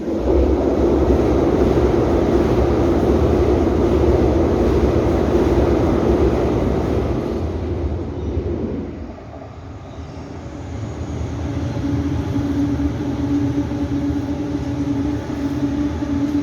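Loud, steady rumble with a droning tone over it, dipping about nine seconds in and then building again.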